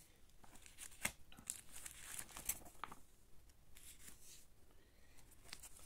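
Faint rustling and crinkling of pages in a folder of newspaper clippings being handled and turned, with scattered small clicks.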